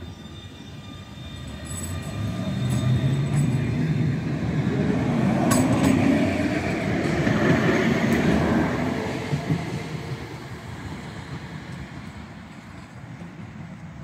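Bombardier CR4000 tram pulling away from a stop and passing close by on its rails. It grows louder to a peak about six to eight seconds in, then fades as it moves off. A few sharp clicks come in the first six seconds.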